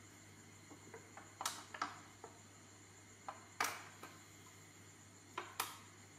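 Baby monkey sucking on a milk bottle: a few faint, irregular clicks and smacks, the loudest about three and a half seconds in and a close pair near the end, over a low steady background hum.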